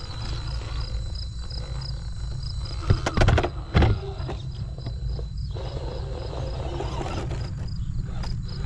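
Small RC rock crawler clambering over rocks, with a cluster of loud knocks and clunks about three to four seconds in as the chassis and tyres bang against the stone, over a steady low rumble.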